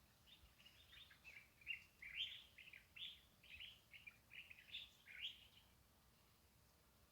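A small songbird singing faintly, a quick run of short high chirps lasting about five seconds.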